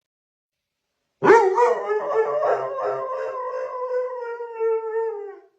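A dog howling: one long howl that starts about a second in, wavers at first, then holds steady and sinks slightly in pitch as it fades out near the end.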